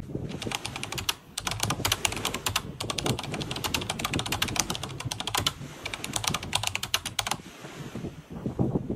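Computer keyboard typing sound effect: quick runs of key clicks with short pauses between them, stopping about seven seconds in.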